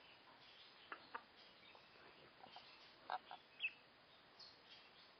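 Chinese goose gosling, about three weeks old, giving a few short peeps, the clearest about three and a half seconds in.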